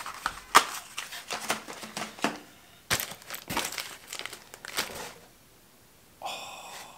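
Clear plastic bags and packaging of fishing lures crinkling and rustling as they are handled in a cardboard box, in a string of short crackles that stop about five seconds in.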